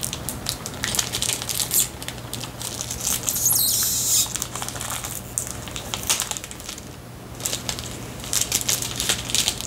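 Crinkling and rustling of snack packaging as a Pocky box and its inner plastic pack are opened, in many short crackles, with a longer ripping stretch about three and a half seconds in.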